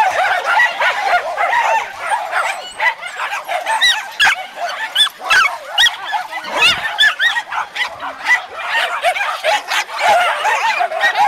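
Many dogs, mostly Jack Russell terriers, barking and yapping at once, a constant overlapping din of many voices with no break.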